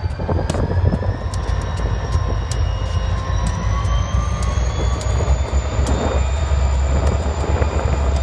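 Diesel locomotive running with a heavy low rumble, and a faint whine that rises slowly in pitch over the seconds.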